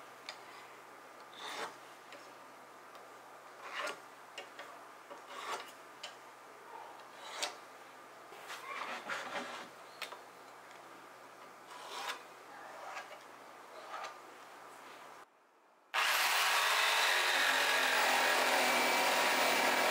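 A marking gauge scratching and clicking in short strokes along the edges of wooden boards, then, after a brief dropout, a jigsaw running steadily as it cuts through the clamped boards; the jigsaw is the loudest part.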